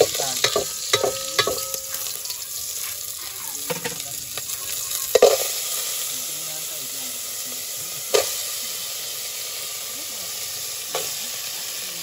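A pot of oysters boiling hard over a wood fire, with a steady hiss of bubbling and steam. In the first two seconds the shells clatter as they are stirred with a utensil, and a couple of sharp knocks on the pot follow later.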